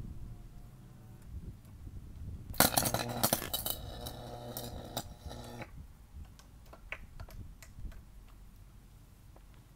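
Electronic electricity meter arcing and burning out under a 2,400-volt primary-to-secondary fault: a sudden loud crackling buzz starts about two and a half seconds in, lasts about three seconds and cuts off, leaving a few faint crackles.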